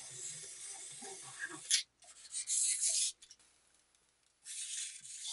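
Fingers handling a small plastic wind-up robot toy: faint rubbing, a click, then a brief louder scraping of plastic against skin, broken by a short spell of dead silence.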